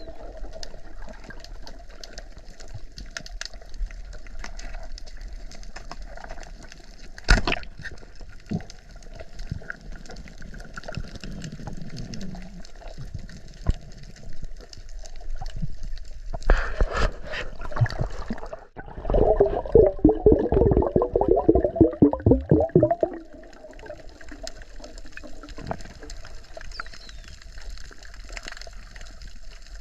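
Water gurgling and rushing around the microphone, with one sharp knock about seven seconds in and a loud stretch of rapid bubbling a little past the middle.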